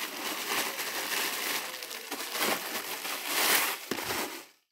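Clear plastic wrapping crinkling and rustling as a lunch bag is handled and pulled out of it. The rustling stops abruptly near the end.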